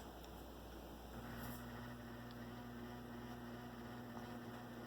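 Harbor Breeze Lansing 42-inch ceiling fan motor buzzing on high speed: a faint, steady electrical hum that comes up about a second in and holds.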